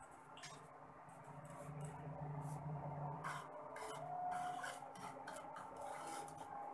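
Wooden spatula scraping and stirring dry salt across a nonstick wok as the salt is dry-roasted: a gritty rasp in short, irregular strokes.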